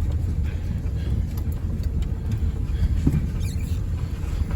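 Vehicle driving along, a steady low rumble of engine and wheels.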